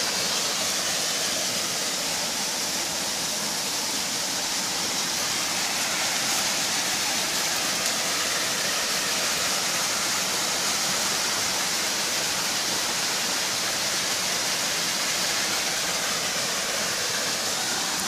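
Small waterfall pouring into a pool: a steady, even rushing hiss of falling water that does not let up.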